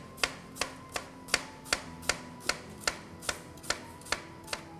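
Chef's knife slicing down through an onion half, its edge tapping the cutting board with each cut. The taps come very evenly, about two and a half a second.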